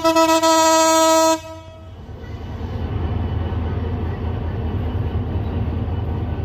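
A train horn sounds one steady note for about a second and a half, then cuts off suddenly. After it the low rumble of a diesel locomotive hauling intercity carriages builds and runs on steadily.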